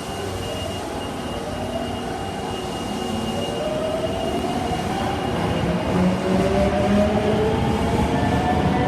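Osaka Metro Tanimachi Line subway train pulling away, its motor whine rising steadily in pitch as it gathers speed over the rumble of wheels on rail. A thin, high, steady tone fades out about halfway through.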